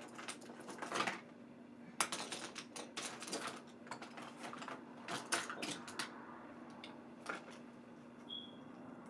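Clusters of quick, light taps and clicks from a makeup brush and an eyeshadow palette being handled, over a faint steady hum.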